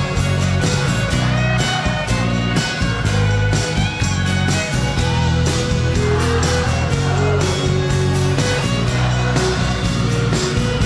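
Live rock band playing an instrumental passage, with a violin carrying the melody over drums, bass and guitar with a steady beat.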